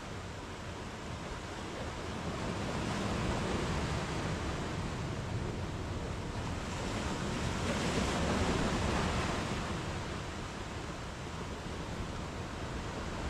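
Sea waves breaking and washing up a sandy beach. The surf swells about a quarter of the way in, grows louder just past the middle, then eases back.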